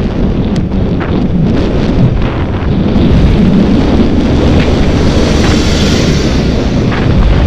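Wind buffeting the microphone of a camera on a moving bicycle, with the noise of a bus passing close alongside, louder from about three seconds in.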